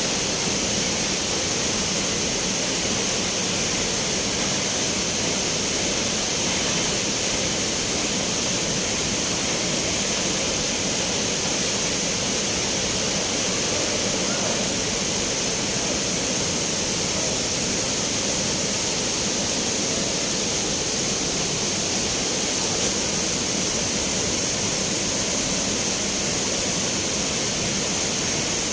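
Spring water rushing and splashing steadily, a continuous even rush of flowing water.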